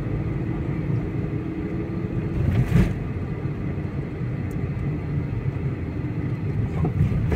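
A car driving, heard from inside the cabin: steady low engine and tyre rumble, with one loud thump a little under three seconds in.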